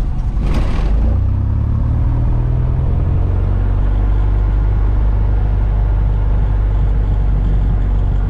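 Four-cylinder fuel-injected Lycoming IO-360 engine of a 1975 Mooney M20F starting, heard from inside the cockpit. It catches with a short burst about half a second in, then runs steadily at idle.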